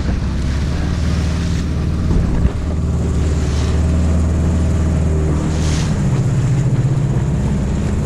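Motorboat engine running steadily under way, with water and wind rushing past. The engine note steps up in pitch about six seconds in.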